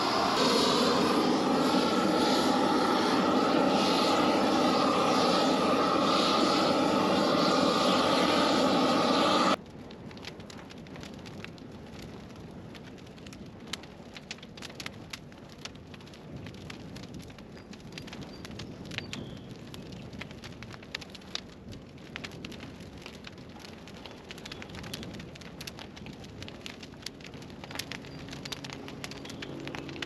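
An engine runs steadily for about the first ten seconds, then stops abruptly, giving way to the quieter crackling and popping of a burning brush pile.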